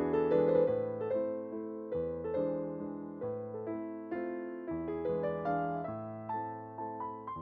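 Gentle electric piano music: a soft, repeating pattern of notes with chords in the bass.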